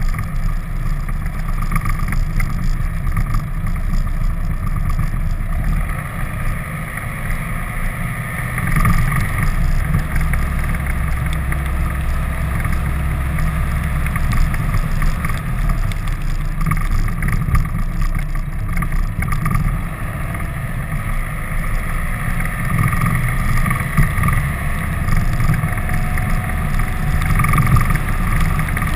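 Steady rumble of a vehicle driving at road speed, engine and wind buffeting the exterior-mounted camera's microphone together, with a fluctuating low roar throughout.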